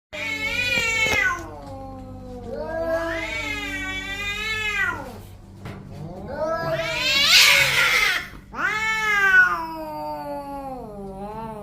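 Angry cats caterwauling: about four long, drawn-out yowls that waver up and down in pitch, the loudest, around the middle, turning harsh and raspy.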